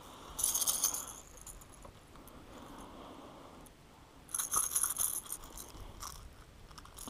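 Two short bursts of rattling and crunching, one just after the start and one about four seconds in: a small bass being handled and unhooked from a hard-bodied crankbait, its hooks jangling.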